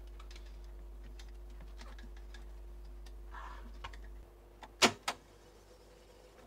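Light ticks and rustles of plastic leader tape being threaded by hand through the head block of an Akai GX-260D reel-to-reel tape deck and onto the take-up reel, over a faint steady hum. About five seconds in come two sharp clicks, a fraction of a second apart, as the transport is started and the tape begins to run.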